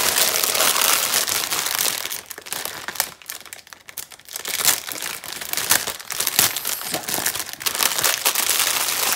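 Clear plastic bags crinkling as a bundle of small zip-lock bags of diamond-painting drills is handled and pushed into a larger plastic bag, with a quieter pause about three to four seconds in.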